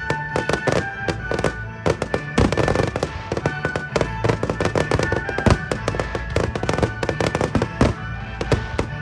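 Fireworks display: many sharp bangs and crackles going off in quick succession, with music from the show's soundtrack playing under them.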